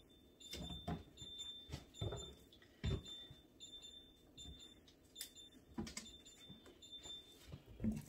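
High-pitched electronic beeping repeating in short pulses, typical of a refrigerator's door-open alarm sounding while the doors stand open, with clinks and knocks of condiment bottles and jars being taken out of the fridge door shelves.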